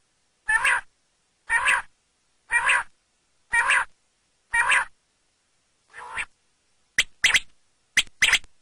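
Quail calling: a short, harsh call repeated five times, about once a second. A fainter call follows, and near the end come two quicker, clipped double notes.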